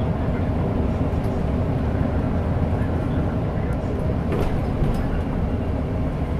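Volvo 8500 bus under way, heard from inside the passenger cabin: a steady engine and road rumble, with a brief rattle about four seconds in.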